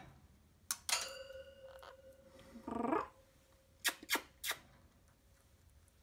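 A pet parrot gives a short low, rough grumbling call about two and a half seconds in, around several sharp clicks.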